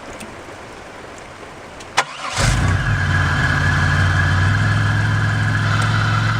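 Pontiac Grand Prix GTP's supercharged 3.8-litre V6, breathing through stainless steel headers and a 2.5-inch cat-back exhaust, starting a little over two seconds in after a sharp click. It flares up briefly, then settles into a steady, throaty idle.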